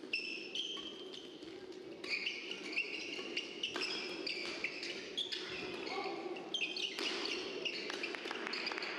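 Badminton doubles rally: rackets striking the shuttlecock with sharp cracks while players' shoes give short, high squeaks on the court mat, many times in quick succession, over a steady low hum.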